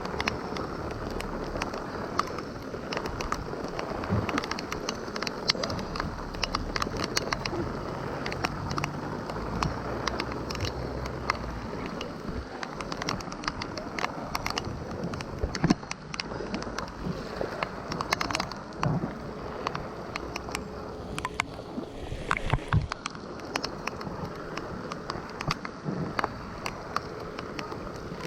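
Outdoor flood ambience: a steady hiss of water and rain with scattered sharp ticks, and a low rumble through about the first twelve seconds.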